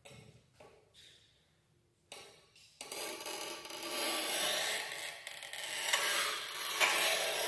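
Manual push tile cutter's scoring wheel scraping across the tile surface as the carriage is pushed along the rail to score a narrow strip. A few light clicks come first; the gritty scratching starts about two to three seconds in and goes on to the end.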